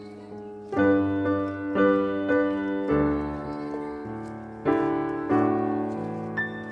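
Background piano music: slow notes and chords, each struck and left to ring.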